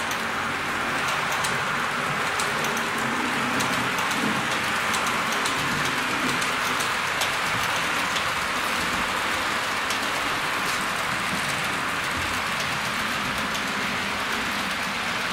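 H0-scale model Eurocity train, an electric locomotive hauling passenger coaches, rolling along the layout's track: a steady hiss of small metal wheels on the rails with a light rumble and scattered faint clicks.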